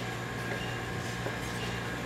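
Steady low hum of background machinery over an even background noise.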